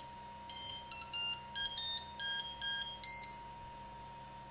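Flashforge Dreamer 3D printer playing its power-on startup tune, the sign that it is booting up. The tune is a quick melody of about eight short electronic beeps at changing pitches, and the last beep is the loudest.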